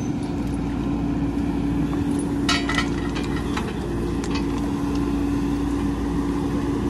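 Diesel engine idling steadily, with a few short metallic clinks about two and a half seconds in.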